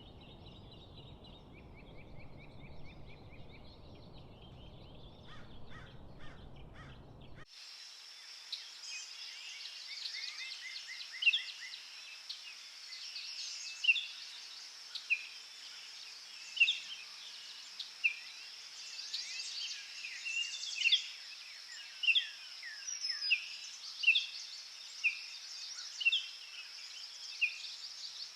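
Birdsong ambience: birds trilling over a low, even background noise, then an abrupt change about a quarter of the way in to a bright chorus with a steady high hiss, in which one bird repeats a sharp chirp about once a second.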